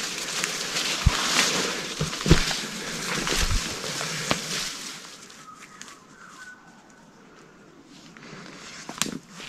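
Footsteps and rustling through forest undergrowth: crunching leaf litter, snapping twigs and vegetation brushing past, with a few knocks in the first half. It then goes much quieter after about five seconds, with one sharp click near the end.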